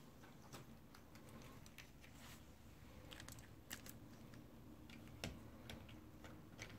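Rebel II HD 3D printer running a print, faint: irregular small clicks and ticks from the moving print head over a low hum.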